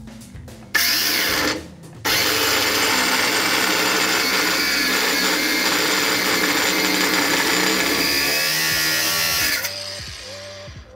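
Cordless Ryobi angle grinder cutting through a welded steel bracket on a car's underbody to clear an exhaust pipe. A short first burst stops briefly, then the grinder runs steadily for about seven seconds and spins down near the end.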